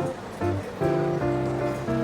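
Background music: held instrumental notes and chords changing every half second or so, with a brief dip in level just after the start.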